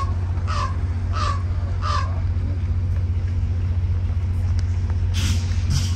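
A diesel passenger train idles with a steady low hum, and over it come four short, harsh animal calls about two-thirds of a second apart in the first two seconds. Two brief rustling noises follow near the end.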